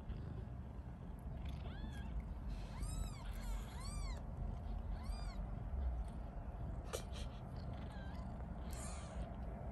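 Tiny kittens mewing: about five short, high-pitched mews, each rising and then falling in pitch, bunched in the first half with one more near the end, over a steady low background rumble.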